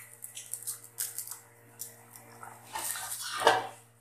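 Kitchen cookware being handled over a pan of boiling vegetable broth as soaked rice is added: scattered small clicks and splashes, then one louder rasping scrape about three seconds in, which fits the rice pot being scraped out or set aside.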